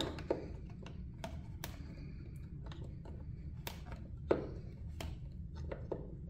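Flat-nosed pliers wiggling and snapping scribed moulded ridges out of the inside of a Kawasaki Ninja 400 plastic airbox lid: a string of sharp plastic clicks and snaps, the loudest about four seconds in, over a low steady hum.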